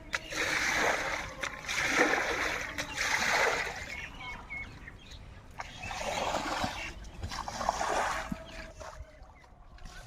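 Water splashing in five separate heavy splashes, each lasting about a second: three close together, then a pause, then two more.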